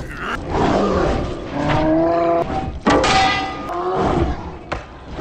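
Men yelling and roaring with strain while fighting, several long rising cries, with one sharp hit about three seconds in.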